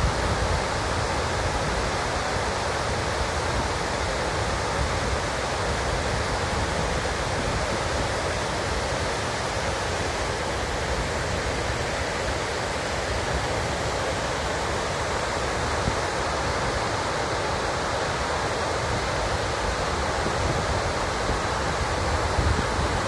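Water pouring over a reservoir dam's spillway as it overflows after heavy rain: a loud, steady rush with a deep rumble underneath.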